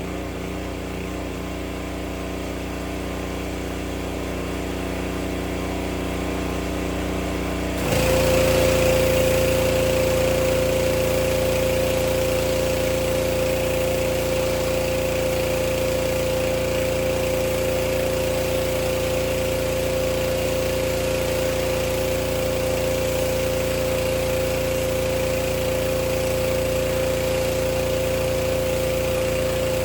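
Gasoline pressure washer running steadily. About eight seconds in the sound jumps suddenly louder, with a stronger engine tone and a hiss added, as the spray wand is triggered and the pump comes under load.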